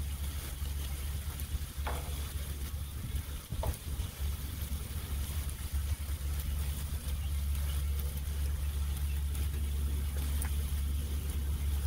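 Diced steak sizzling on a hot Blackstone flat-top griddle, a steady crackling fry, over a constant low rumble. A couple of faint ticks come about two and three and a half seconds in.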